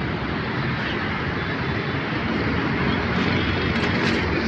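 Steady, continuous rumble of engines and city traffic.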